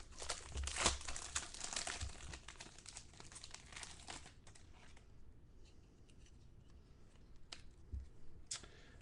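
Packaging on a Bowman Sterling football card box being torn open and crumpled, crinkling for about four seconds. Then it goes quieter, with a few light clicks near the end.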